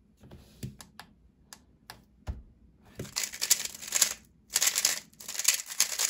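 HuaMeng YS3 M Ball-Core 3x3 speedcube: a few separate clicks and a knock, then from about three seconds in a fast, dense clatter of its layers being turned at speed in a speedsolve.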